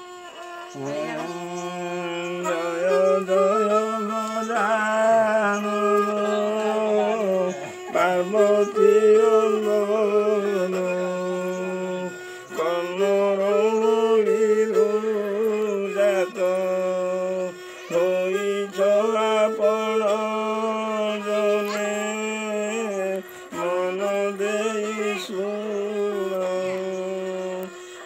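Hand-made bowed folk fiddle with a round shell resonator playing a sliding folk melody over a steady low tone, pausing briefly every few seconds between bow strokes.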